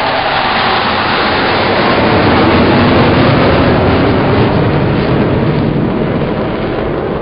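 Jet noise from a low military flypast of a large four-engine jet and two delta-wing fighter jets in formation: a loud rushing roar that swells to its peak about halfway through, then eases slightly.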